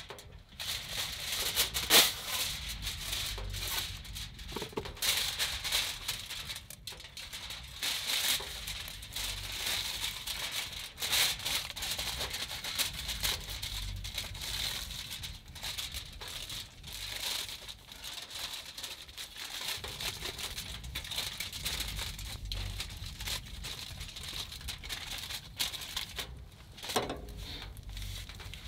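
Aluminium foil crinkling and rustling as it is unfolded, handled and folded by hand, in many irregular crackles.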